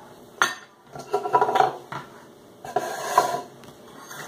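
A small metal bowl and a plastic measuring cup being handled and set down on a wooden table. There is a sharp knock about half a second in, then two short spells of clattering.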